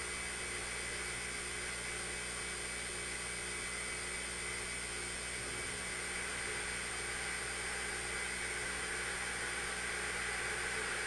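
Hurricane-force wind blowing steadily, a dense rushing noise that swells a little near the end.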